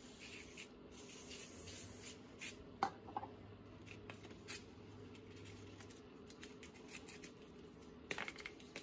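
Faint scraping, rubbing and a few light clicks of metal brake caliper slide pins being handled and scrubbed clean, over a steady low hum.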